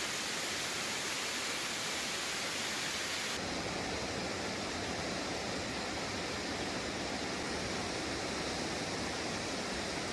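Waterfall's steady rushing noise. About three and a half seconds in, the sound shifts to less hiss and more low rumble.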